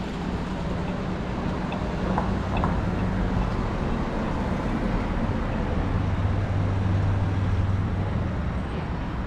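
Street traffic noise: cars driving along a town street, with one vehicle's low engine hum growing louder about six seconds in.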